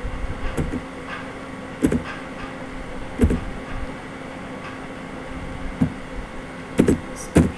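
A steady low hum with a handful of short soft knocks and clicks scattered through it, two of them close together near the end.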